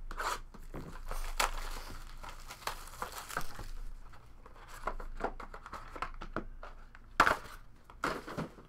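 Plastic shrink wrap being torn and crinkled off a trading card box. After that come scattered light clicks and taps as the box is opened and the cards are handled, with one sharp tap about seven seconds in.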